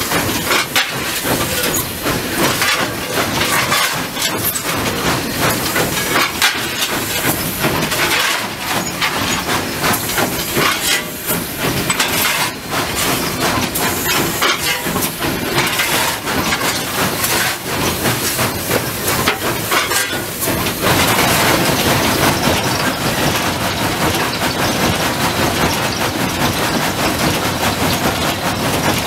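Steam locomotive heard from its cab while under way: a steady hiss of steam mixed with clattering and knocking from the engine and rails. About two-thirds of the way through the noise becomes steadier and a little louder.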